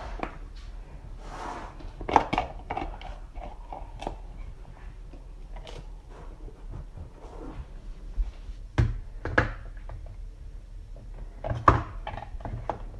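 Scattered knocks and clicks of a kitchen mixer-grinder jar and its lid being handled and fitted, with a few louder knocks about 2 s, 9 s and 12 s in.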